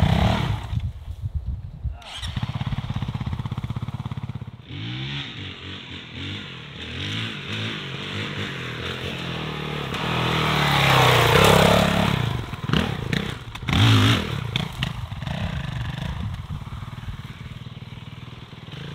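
Honda CRF450L's single-cylinder four-stroke engine being ridden off-road, its pitch rising and falling as the throttle is worked. It is loudest as the bike comes near about halfway through, with a short loud burst about two-thirds of the way in.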